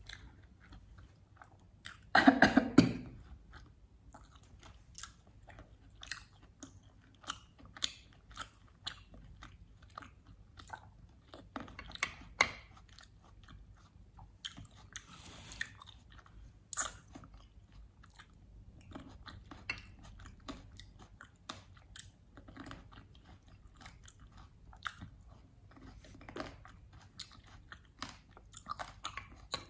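Close-miked chewing and biting of barbecued mutton chops: wet mouth clicks and small crunches throughout, with one much louder burst about two seconds in.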